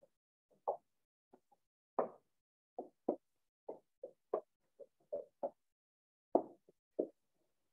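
Marker tapping and stroking on a whiteboard while letters and brackets are written: a series of about fifteen short, irregular knocks.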